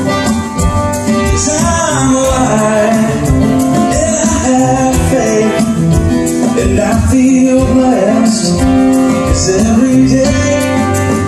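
Live acoustic song: a man singing lead over two strummed acoustic guitars.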